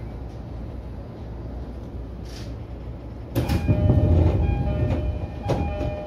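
E233-series electric train running, heard from its front cab as a steady low rumble. A little past halfway a sudden, much louder burst of wheel-on-rail clatter sets in, with clicks and squealing tones, and it eases off near the end.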